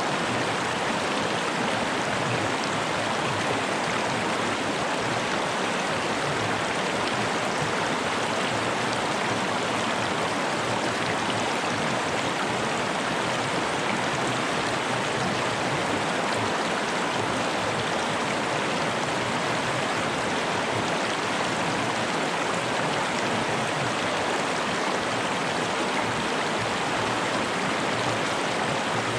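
Fast-flowing mountain river rushing over rocks, a steady even rush of water.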